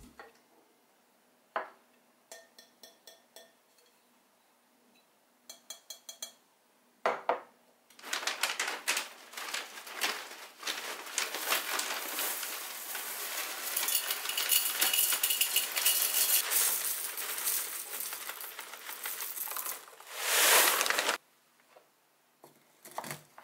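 Cornflakes poured from a plastic bag into a glass canister: a dense, continuous rattle of dry flakes hitting the glass for about twelve seconds. A few light clicks and taps come first, and a short swish near the end.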